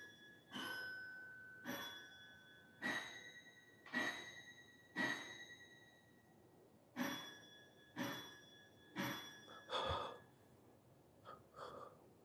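Faint single piano notes struck one at a time, each ringing briefly and fading. There are five about a second apart, a pause, then four more.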